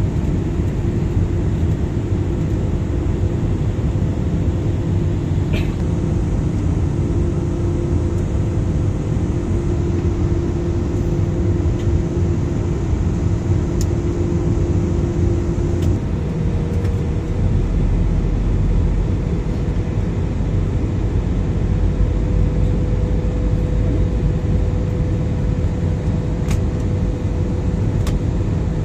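Steady cabin noise inside an Airbus A320 in flight: a low rumble of engines and airflow, with a faint engine hum whose pitch steps up about halfway through.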